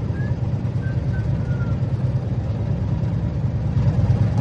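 Low, steady rumble of vehicle engines at road speed, with a few faint short whistling chirps about a second in.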